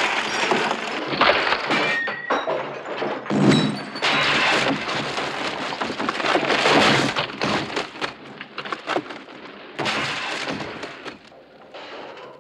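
A string of crashes and smashes, with breaking glass, wood cracking and heavy thuds following one another closely, as furniture and fittings are wrecked in a brawl. The crashing thins out and quiets near the end.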